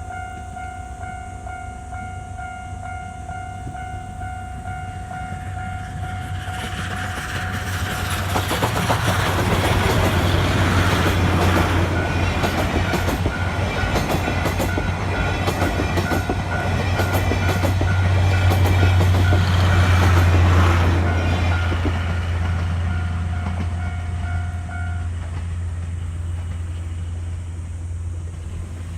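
Level-crossing warning bell ringing in a steady alternating pattern as the C57 180 steam train and its coaches pass over the crossing, its wheels clacking over the rail joints. The train grows loud a few seconds in, passes for about fifteen seconds, and fades; the crossing bell stops near the end.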